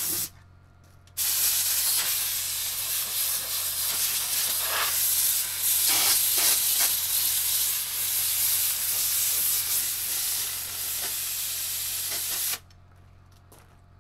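Compressed air blasting from a blowgun, clearing debris from the Kubota KX040 excavator's radiator cores. The blast cuts out for about a second near the start, runs on steadily, then stops near the end.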